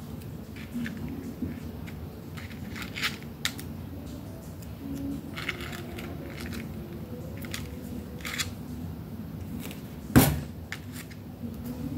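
Paper flowers and card being handled and glued on a work table: scattered rustles and small clicks, with one sharp knock on the table about ten seconds in.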